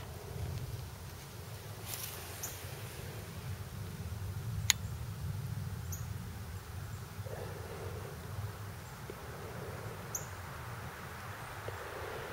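Quiet outdoor ambience: a low, uneven rumble with a few short, faint high chirps every few seconds, and one sharp click about four and a half seconds in.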